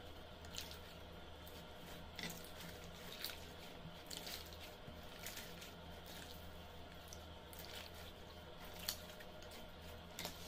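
Slime being kneaded and squeezed by hand, giving irregular soft wet squelches and little pops over a faint steady low hum.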